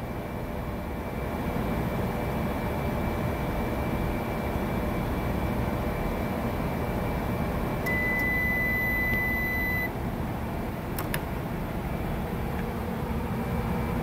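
Sharp R-21LCFS commercial microwave oven running with a steady hum. About eight seconds in it gives a single long beep lasting about two seconds, its beep when the timer runs out. A sharp click follows about a second later.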